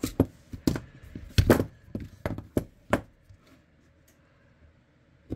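Workshop handling noise: a quick series of about eight sharp knocks and thunks of hard objects, the loudest about a second and a half in, stopping about three seconds in.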